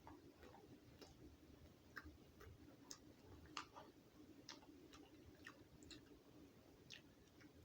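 Near silence: room tone with a faint steady hum and faint, irregular clicks about once or twice a second.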